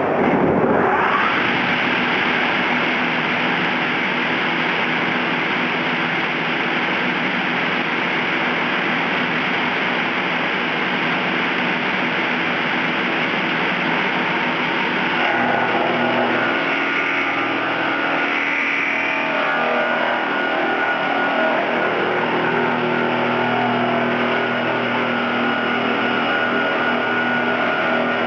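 GR-630 slab-resawing machine running, its motors and saws making a loud steady machine noise with steady hum tones underneath. The sound changes character about halfway through.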